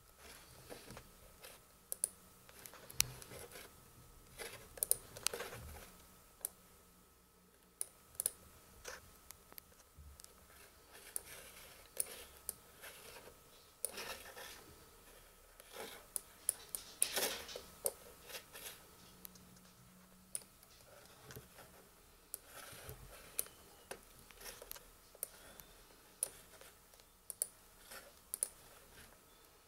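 Irregular small clicks and scratching from hands working a laptop, quiet overall, with a faint steady high tone underneath.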